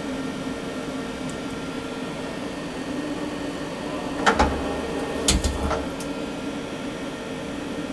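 Leadwell CNC lathe running with a steady hum while its tool turret slide traverses, with a few sharp knocks a little past halfway through.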